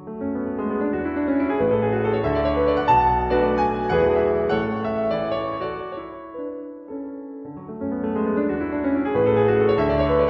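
Background piano music: held notes and chords that swell in, thin out briefly a little past the middle, then return.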